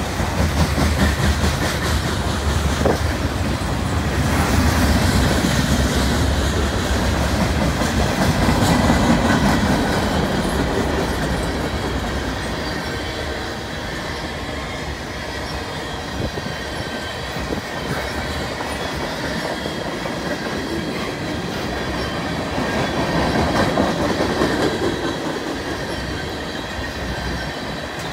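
CN freight train's tank cars and loaded flatcar rolling past close by: a steady rumble of steel wheels on the rail, swelling louder twice as groups of wheels pass.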